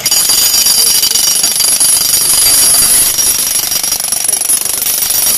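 Jackhammer hammering continuously, starting abruptly, with a rapid rattle and a high ringing whine above it as it breaks up the bulkhead down to below grade.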